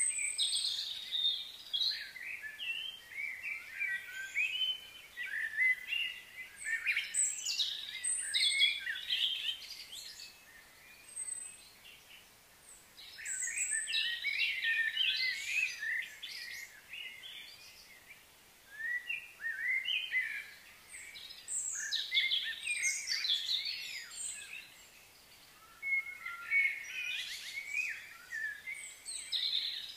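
Several birds chirping and singing: quick, high chirps and trills that come in bursts, with a few short lulls between them.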